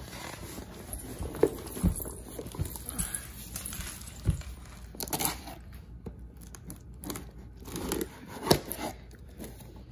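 Packing tape being peeled and ripped off a cardboard box, with scraping and knocks of the cardboard flaps. Two louder rips stand out, about five seconds in and at about eight and a half seconds.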